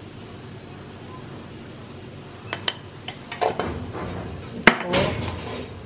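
A spoon clinking against a container and knocking on the pan as salt is spooned in. A few sharp clicks come about halfway through, then a cluster of knocks, with one loudest knock near the end and brief rattling after it.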